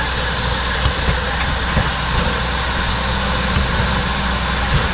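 Nickel Plate Road 765, a 2-8-4 Berkshire steam locomotive, running past: a steady hiss of steam over a low rumble, with a few soft thumps.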